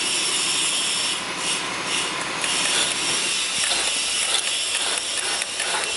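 Roll forming machine running, a red-coated steel sheet rubbing and scraping steadily through its stands of forming rollers.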